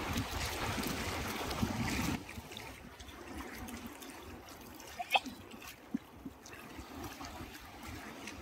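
Water trickling and splashing gently, louder for the first two seconds and then quieter, with one sharp click about five seconds in.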